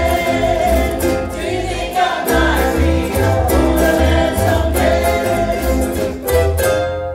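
Ukulele band playing live: strummed ukuleles over a pulsing bass line, with several voices singing together. The song winds down to its close near the end.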